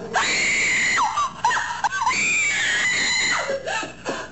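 Human screaming and squealing, loud and high-pitched. A long held scream comes first, then shorter wavering squeals, then another long scream in the middle, with shorter cries tailing off near the end.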